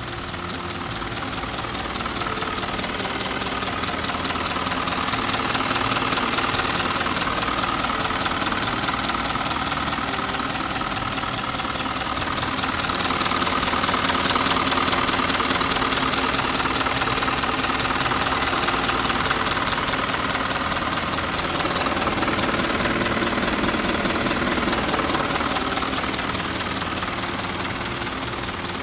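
Isuzu Elf truck's diesel engine idling steadily with the cab tilted open.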